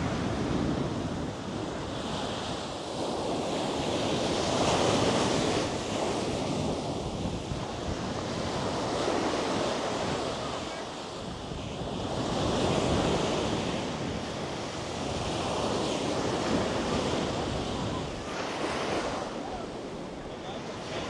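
Ocean surf breaking and washing up onto a sandy beach, the rush swelling and fading every few seconds, with wind buffeting the microphone.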